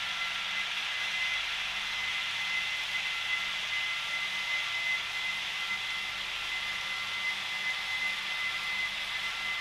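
H0-scale model trains running on the track: a steady whirr of locomotive motors and rolling wheels, with a thin steady whine.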